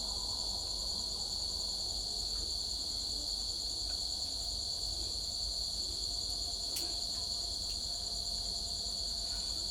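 Crickets chirping in a steady, continuous high-pitched trill, with a few faint clicks.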